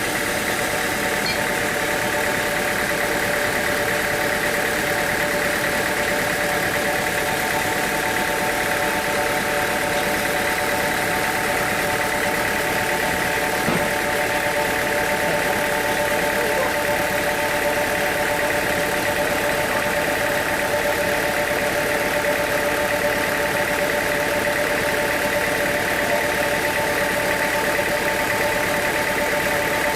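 Sawmill machinery running steadily, an engine-like hum with a few constant whining tones and no change in load.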